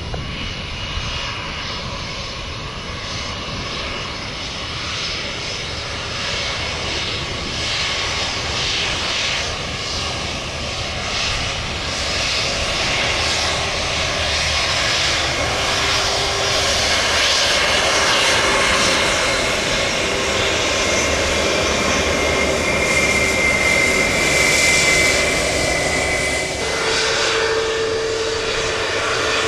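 Jet airliner engines, growing louder over about twenty seconds to a peak with a high whine, then dropping off suddenly and easing to a steadier hum near the end.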